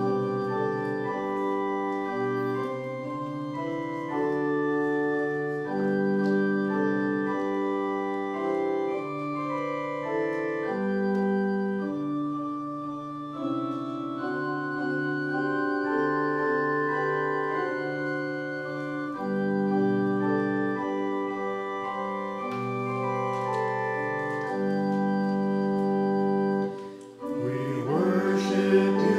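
Church organ playing the introduction to a hymn: sustained chords that change every second or two, with a brief break just before the end. In the last second the congregation starts singing the first verse.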